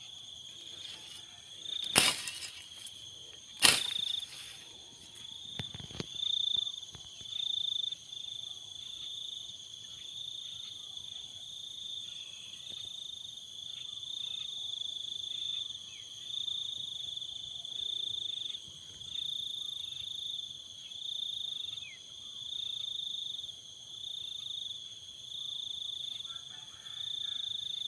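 Insects chirring steadily in a high trill that swells and fades about once every second and a half. A few sharp knocks sound in the first several seconds.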